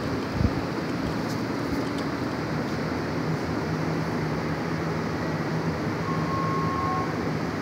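Steady mechanical rumble with a low hum that comes in about three seconds in, and a single thump just after the start.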